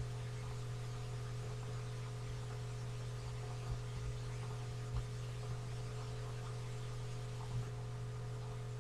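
Low steady electrical hum with a faint hiss, and a few faint ticks.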